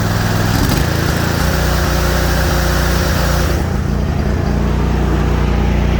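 The 25-horsepower Kohler engine of a Hustler Raptor SD zero-turn mower running, its note changing about a second in as it is revved up. A higher hiss over the engine stops about three and a half seconds in.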